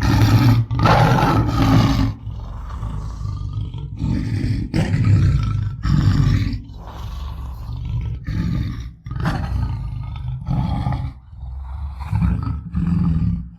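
Tiger roaring and growling: a run of rough, repeated roars, the loudest in the first two seconds, followed by shorter calls about every second.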